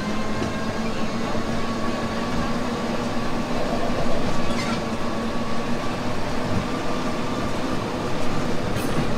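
Amusement-park train running along its track, heard from an open passenger car: a steady rumble with a steady hum, and a couple of faint clicks about halfway through and near the end.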